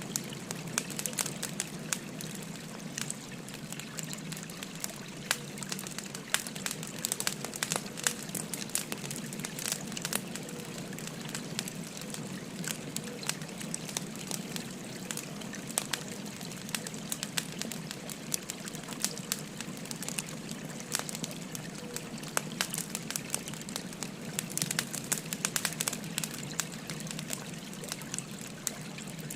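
Burning firewood crackling with frequent sharp pops, over the steady rush of a flowing river.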